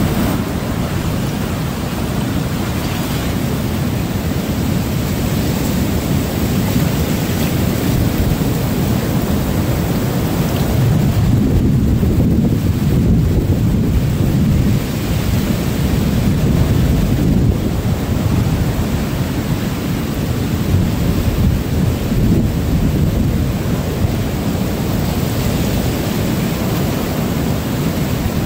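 Hurricane wind blowing hard on the microphone as a constant low rumble, over heavy storm surf breaking and surging water washing up the beach.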